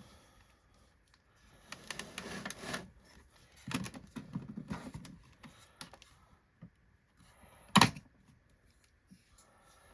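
Hoover Windtunnel Supreme upright vacuum being handled while it is cleaned: rustling, small clicks and a run of clatter, then one sharp knock near the end.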